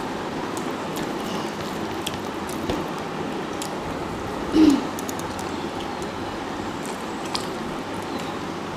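Eating with the hands: fingers squishing and mixing rice and curry on plates, chewing, and scattered small clicks, over a steady background hiss. A short falling 'hmm'-like voice sound stands out about halfway through.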